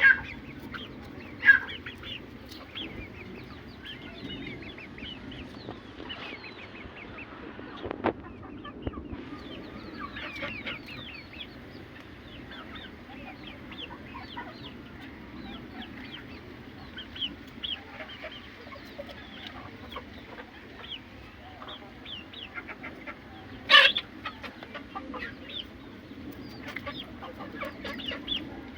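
Aseel chickens clucking, with a steady scatter of short high calls and a few louder sharp calls, the loudest about 24 seconds in.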